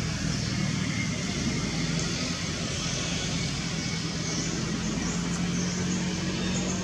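Steady low hum and rumble of motor traffic, with a few faint high chirps in the second half.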